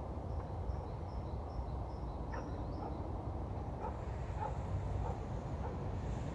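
Birds calling on floodwater: a run of short, high chirps in the first three seconds, then a few brief sharper calls, over a steady low rumble.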